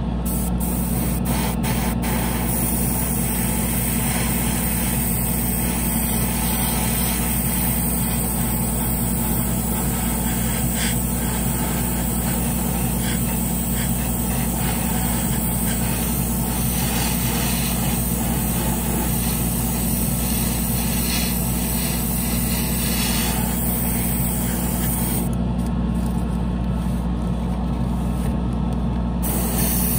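Airbrush spraying paint with a steady hiss over the constant hum of a spray booth's exhaust fan. Near the end the hiss stops for about four seconds while the fan hum carries on, then the spraying resumes.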